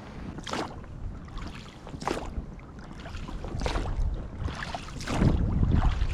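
Oars of a pontoon boat dipping and pulling through the water in a steady rowing rhythm, one splashy stroke about every second and a half, over a low wind rumble on the microphone.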